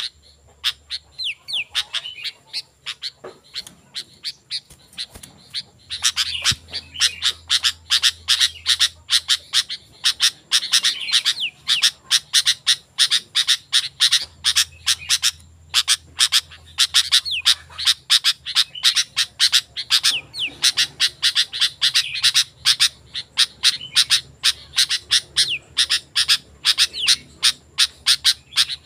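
Sooty-headed bulbul (kutilang) singing vigorously. A few scattered notes come first, then from about six seconds in a fast, near-continuous run of short whistled and chattering notes.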